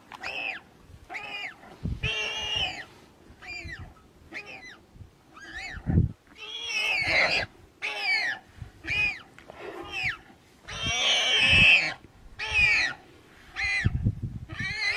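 A wild pig squealing over and over as a lioness holds it down, a long run of high-pitched squeals that rise and fall, with a few short low rumbles underneath.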